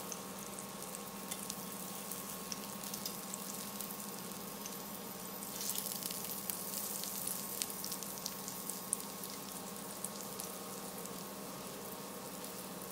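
Skewered chicken gilafi kebabs frying in butter: a steady sizzle with fine crackles, a little livelier from about six seconds in.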